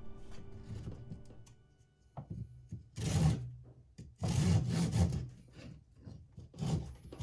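A saw cutting through wood in a few separate rasping strokes, the longest about a second.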